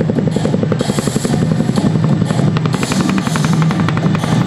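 Chinook tandem-rotor helicopter hovering low overhead, its two rotors beating in a fast, steady chop.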